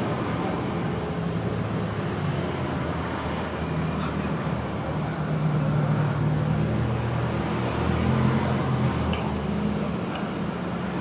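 Steady street traffic with the running engines of passing vehicles, swelling a little in the middle.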